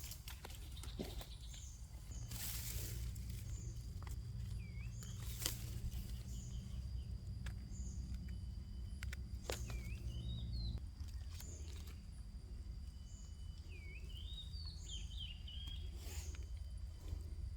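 Forest ambience: a bird gives short swooping whistled calls a few times, over a steady high insect drone and a low steady rumble, with occasional rustles and clicks from handling while mushrooms are picked in the undergrowth.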